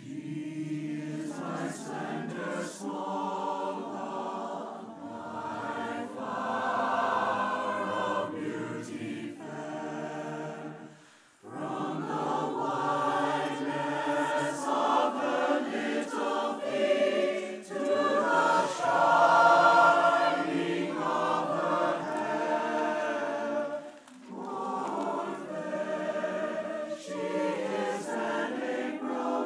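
Large mixed choir of men's and women's voices singing in harmony. The singing breaks off for a moment about eleven seconds in and dips briefly again later before going on.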